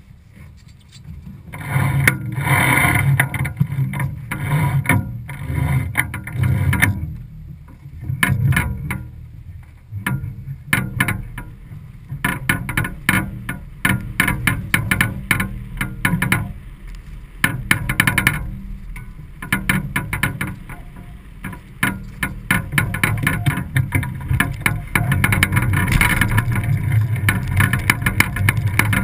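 Wind and water noise aboard a sailboat under sail: a constant low rumble broken by many short knocks and rattles from the lines and gear, becoming steadier and denser near the end.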